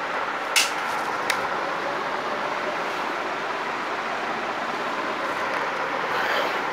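Steady background noise, with two sharp clicks, the first about half a second in and the second just over a second in.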